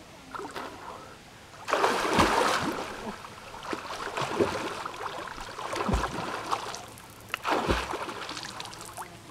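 A swimmer splashing through lake water, strokes and kicks churning the surface in repeated bursts. The loudest burst comes about two seconds in.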